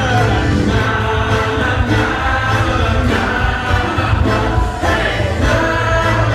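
A live band plays, heard through the hall: singing over a button accordion, electric guitar and electric bass.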